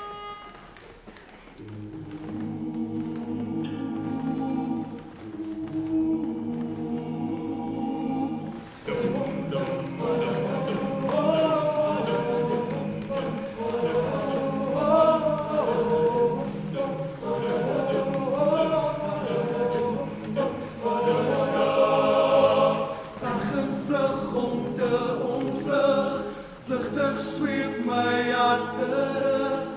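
Men's choir singing. It opens with a low sustained chord from about two seconds in, and the whole group comes in louder with a moving melody about nine seconds in.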